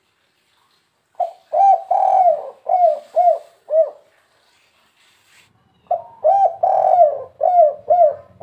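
Spotted dove cooing: two phrases of about six short, arched coos each, the third coo in each phrase drawn out longer. This is the three-note 'kuk 3' call that is used to provoke other doves.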